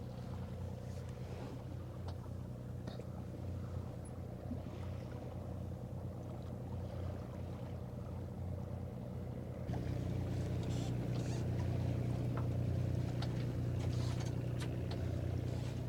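Sailboat's inboard diesel engine running steadily under power, a low hum that steps up louder about ten seconds in. Faint clicks and rattles sit on top of it.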